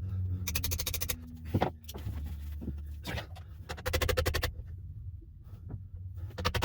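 Quick, evenly spaced rasping clicks in three bursts as a seized spin-on oil filter, pierced through with a screwdriver, is wrenched round on its mount. A steady low hum runs underneath.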